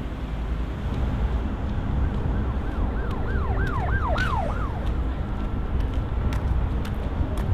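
Emergency-vehicle siren sounding in quick rising-and-falling sweeps for a few seconds, starting about two seconds in, over a steady low rumble of traffic.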